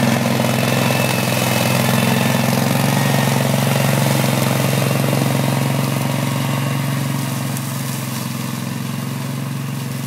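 Spider ILDO2 remote-controlled slope mower, its Kawasaki mower engine running steadily at cutting speed through brush and heavy weeds, the hum dropping slightly in level about seven seconds in.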